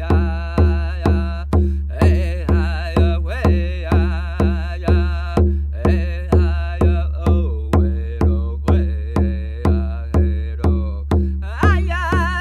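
Anishinaabe sundance song: a drum struck in a steady beat about twice a second under singing with a wavering pitch, the phrases broken by short breaths. Near the end the singing jumps to a higher line.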